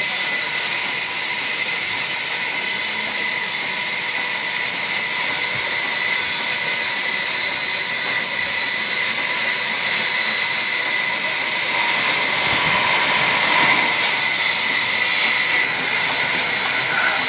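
Large log band saw running with a steady, loud high-pitched whir, growing a little louder about twelve seconds in.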